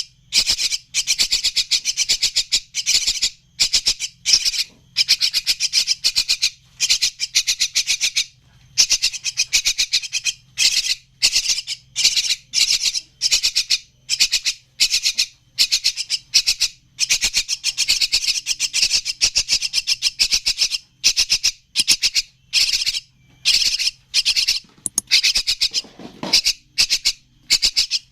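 Javan myna chicks calling: harsh, rasping calls repeated in quick short bursts, one cluster after another without letup.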